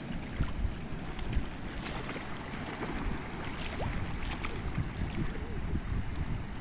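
Sea waves washing on the shore under heavy wind rumble on the microphone, with a few short, faint bird calls a little past the middle.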